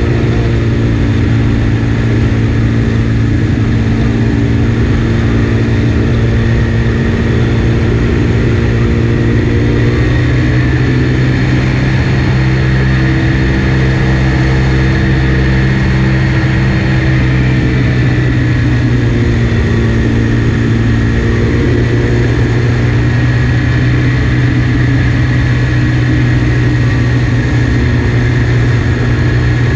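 Ramphos amphibious trike's engine and pusher propeller running steadily in level flight, a loud even drone with only slight shifts in pitch.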